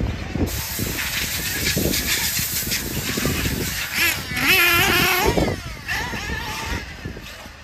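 A 1/8-scale RC off-road buggy driving on a dirt track: a high-pitched motor whine that glides up and down in pitch with the throttle, loudest about four to five and a half seconds in, then fading as the car moves away.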